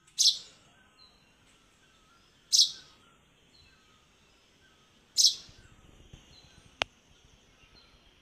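A small bird giving a short, high, scratchy call three times, about every two and a half seconds, with faint chirps in between. One sharp click comes about two-thirds of the way through.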